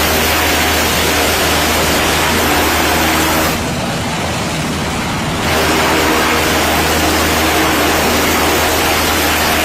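Helicopter rotor and turbine engine running, heard from inside the open-door cabin: a loud steady drone with a rushing hiss. For about two seconds in the middle it turns quieter and duller, the same helicopter heard from the flight deck.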